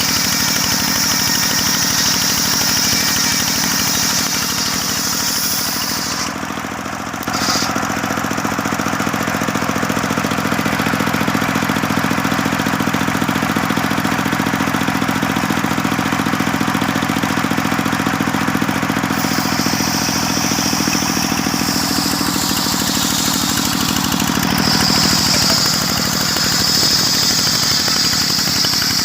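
Circular sawmill running steadily while sawing a long log, a constant machine drone with a high whine over it. The whine and overall level dip for about a second some six seconds in, and the whine comes back strongly near the end.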